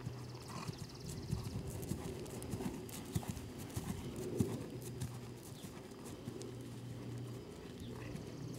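Hoofbeats of a ridden horse trotting on grass turf, a run of irregular hoof strikes over a steady low hum.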